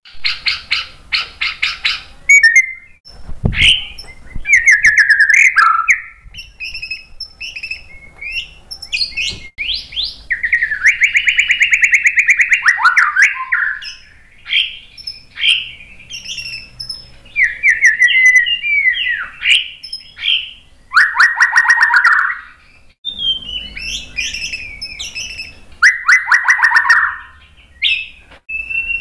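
Male white-rumped shama singing a long, varied song of rapid rattling trills, clear whistled notes and sliding phrases, in quick succession with short pauses.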